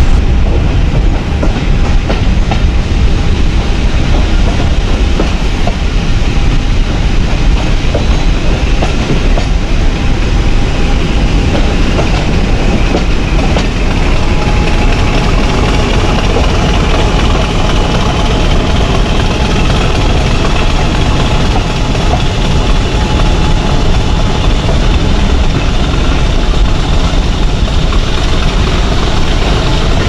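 British Rail Class 50 diesel locomotive's English Electric 16-cylinder engine working hard under power ('thrash'), heard at close range from an open window of the coach behind it, mixed with the coach wheels clicking over the rails. A high whine rises slowly through the second half.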